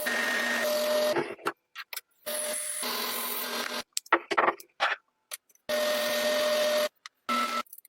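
A small power tool's motor whirring with a rubbing, scraping hiss, in four bursts of about one to one and a half seconds each that cut off abruptly, with a few sharp clicks in the gaps between them.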